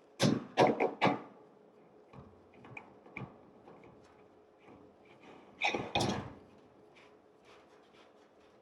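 Clanks and knocks of a kitchen range's bottom drawer being pulled out and handled: a quick run of four loud clanks in the first second, a few lighter knocks, then another loud pair about six seconds in.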